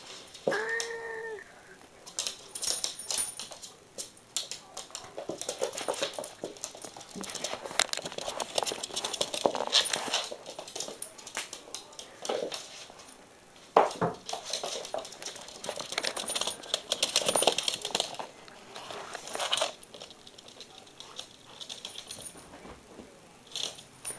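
A small dog and a cat scuffling on a hardwood floor: quick clicks of claws and movement, with clinks and jingles from their collars. One short animal cry comes about half a second in.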